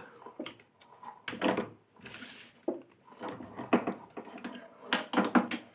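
Small clicks, knocks and a brief rustle as an oscilloscope probe and its plastic accessories are handled and unpacked.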